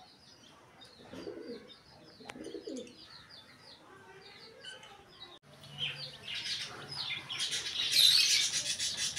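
A brood of domestic chicken chicks peeping: many short, high, falling cheeps. They are faint at first, then after a sudden break about halfway through they become a louder, denser chorus over a low steady hum.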